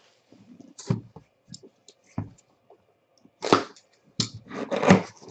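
Cardboard box being handled and its lid opened: a few short knocks and scrapes of cardboard, then louder, longer scraping and rustling in the second half.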